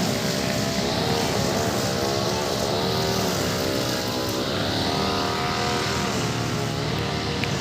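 Two-stroke brush cutter engine running at high speed, its pitch rising and falling repeatedly as it cuts grass.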